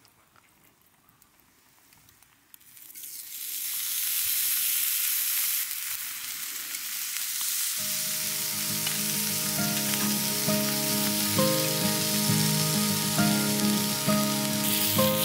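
Beef steaks searing on a hot iron griddle plate over a wood fire: a loud, dense sizzle that swells in about three seconds in and keeps going. Background music comes in about halfway through.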